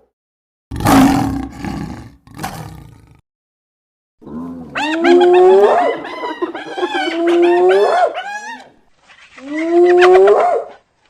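Cave hyena sound effects: a short rough roar, then a string of rising whooping calls, each sweeping upward in pitch.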